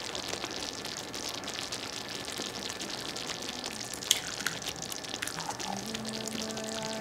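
Tomato sauce simmering in a cast-iron skillet with a steady crackle of bubbling and sizzling, and a sharp click about four seconds in as an egg goes into the pan. Soft background music comes in near the end.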